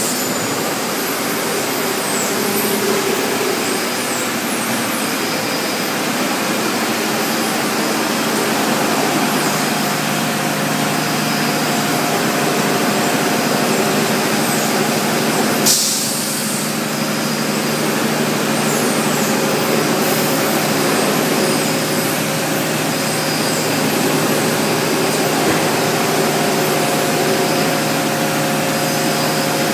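Milnor continuous batch washer line and the surrounding industrial laundry machinery running: a steady, loud mechanical din with a constant low hum. About halfway through comes one short, sharp hiss of released compressed air.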